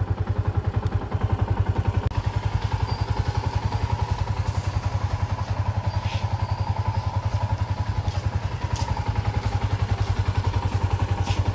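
Small motorcycle engine running steadily, an even, rapid pulsing beat of about ten pulses a second that holds the same pace throughout.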